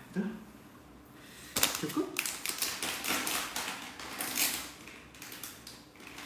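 A quick run of small clicks and rustling taps, starting about a second and a half in and lasting about three seconds.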